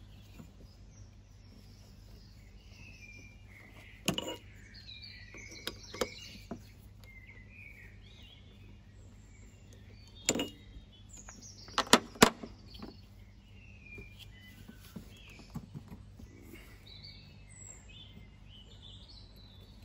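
A few sharp metal clinks as a socket ratchet works on the pulley bolt and the steel pulley is lifted off a power steering pump, the loudest a close pair about twelve seconds in. Birds sing in the background throughout.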